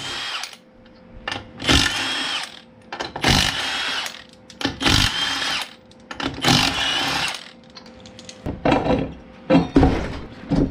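Cordless impact wrench hammering the lug nuts off a compact tractor's rear wheel in four bursts of about a second each, its motor whining high over the rattle of the hammer. Near the end come a couple of sharp knocks as the wheel is worked off the hub.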